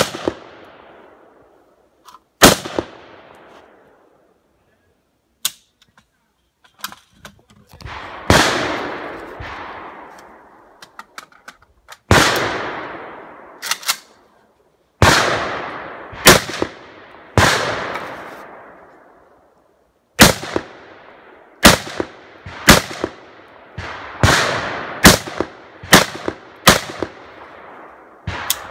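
A rifle fired in single aimed shots, about sixteen in all. They come a second or more apart at first and in a quicker run near the end. Each shot is followed by a long echoing tail.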